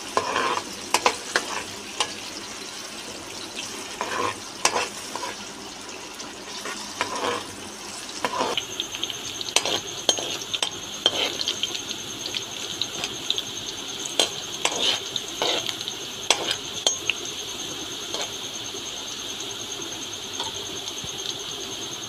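Sliced onions frying in hot oil in a large metal karahi, sizzling as they cook toward golden brown, while a metal slotted spoon stirs and scrapes them with scattered clinks and knocks against the pan. About eight seconds in the sizzle grows stronger and higher. The spoon knocks stop after about seventeen seconds, leaving a steady sizzle.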